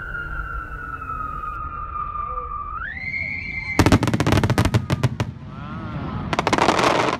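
Fireworks display: a long whistling tone slides slowly down, jumps up in pitch about three seconds in and then stops. Dense, rapid crackling pops follow, with a second burst of crackles near the end.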